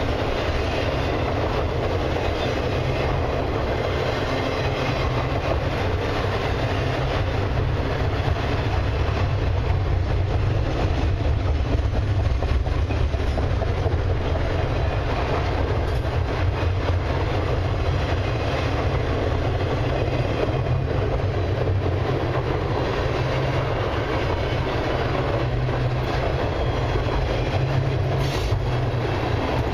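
Double-stack intermodal container cars of a long freight train rolling past at steady speed: a continuous rumble of steel wheels on rail, with faint clicks throughout.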